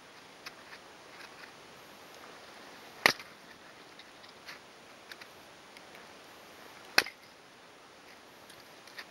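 A hatchet splitting dry deadwood into kindling: two sharp chopping strikes about four seconds apart, about three and seven seconds in, with faint knocks of split sticks between them. The wood splits easily.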